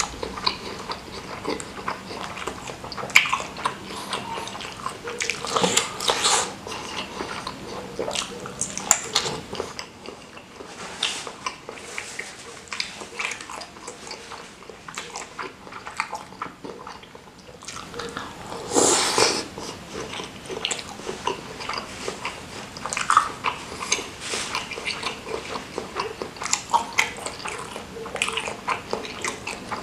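Close-miked eating sounds: a person biting and chewing bakso meatballs in spicy chili broth, with wet mouth smacks and clicks of a fork against the bowl. One louder, longer wet sound comes about two-thirds of the way through.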